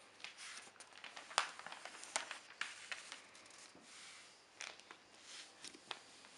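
Newspaper pages being turned and handled: a run of sharp crackles and rustles of newsprint, loudest about a second and a half in, then a few more short crackles near the end as a hand settles on the page.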